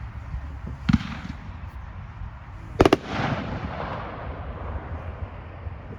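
Consumer aerial fireworks going off: a sharp bang about a second in, then a louder double bang just before the three-second mark, followed by about two seconds of fading tail.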